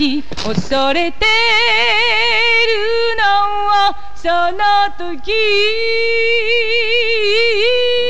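A woman's singing voice, solo, holding long sustained notes with a wide vibrato in a few phrases.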